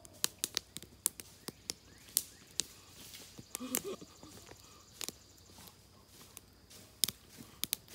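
Chewing a mouthful of hot dog in bun close to the microphone: sharp, irregular mouth clicks and smacks, several a second. There is a brief low squeak about three and a half seconds in.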